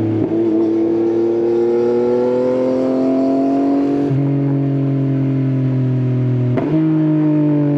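Yamaha XSR900's inline-three engine running through an Akrapovič exhaust under way, its note rising slowly. The note breaks briefly about four seconds in, and again with a click near six and a half seconds.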